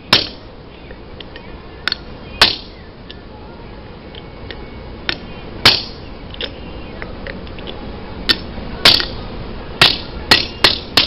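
Claw hammer striking a steel 1¼-inch socket set in an NP231 transfer case tail housing, driving the worn output-shaft bushing out. About a dozen sharp blows with a short ring after each, at uneven intervals and coming faster near the end.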